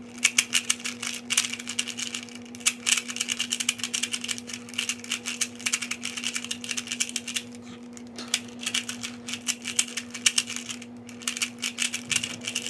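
Rubik's cube being scrambled by hand: rapid, irregular plastic clicking and clacking as the layers are twisted, with brief pauses. A steady low hum runs underneath.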